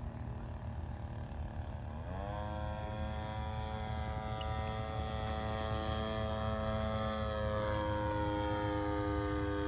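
The 52cc Turnigy two-stroke gas engine and propeller of a giant-scale RC Piper Super Cub running in flight, a steady droning buzz. It rises in pitch about two seconds in, then holds steady, shifting slightly lower near the end.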